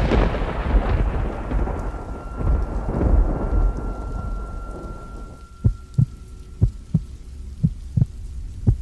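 A thunder crash with rain that rumbles and fades over about five seconds, then a heartbeat sound effect thumping in lub-dub pairs about once a second.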